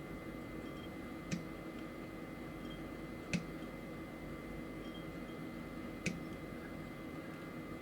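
Hobby nippers snipping plastic model-kit parts off their runners: three sharp clicks a couple of seconds apart, over a steady background hum.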